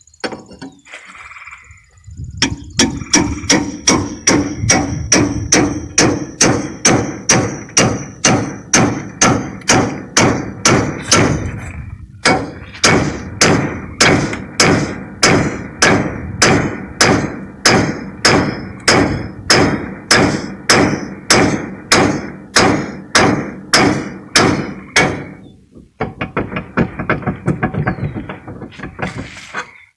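Repeated metal-on-metal blows, about three a second, from a tie rod separator hammered against a car's seized lower ball joint to break it loose from the steering knuckle. The strikes pause briefly near the middle and grow softer near the end.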